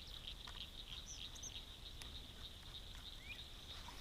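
Faint night chorus of calling insects: a steady, high, pulsing trill, with a few brief higher chirps and one rising chirp about three seconds in.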